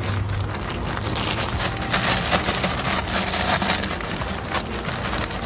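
Clear plastic bag crinkling and loose coco coir pattering into a plastic bucket as it is shaken out; a dense, rain-like crackle, busiest around the middle.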